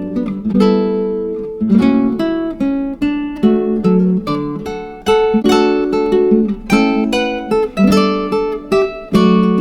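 Background music: acoustic guitar playing plucked and strummed chords in a steady rhythm.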